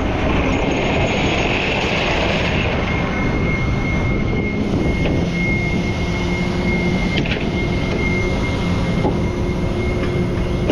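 Rollback tow truck running with its hydraulics working: a steady rumble under a thin, steady high whine.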